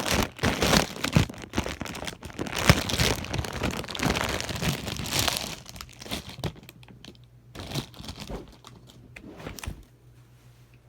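Packaging crinkling and tearing as a plush toy is unwrapped by hand, busy for about six seconds, then thinning to a few scattered rustles that stop near the end.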